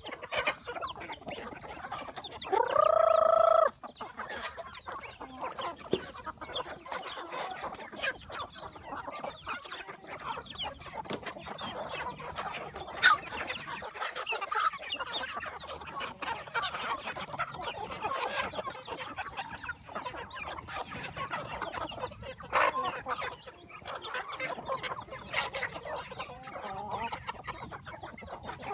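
A flock of chickens clucking and chattering continuously. A rooster crows once, loudly, about three seconds in.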